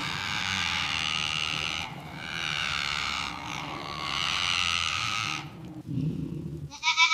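Two long, harsh goat bleats, each about three seconds, the second ending about five and a half seconds in. A short, clearer bleat follows near the end.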